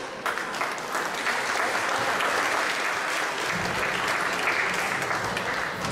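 Audience applauding at the end of a song, the clapping starting right away and holding steady.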